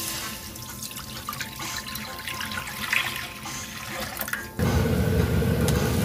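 Anchovy broth poured from a glass measuring jug into an empty pot, splashing on the pan's bottom. About four and a half seconds in it gives way suddenly to the louder bubbling of the broth at a full boil.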